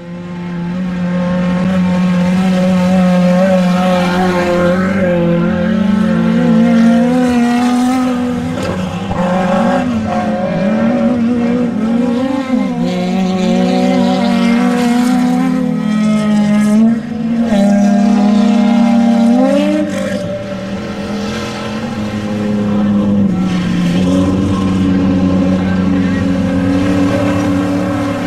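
Off-road race vehicle engine running hard at high revs, its pitch holding steady for stretches, then stepping and sliding up and down with the throttle.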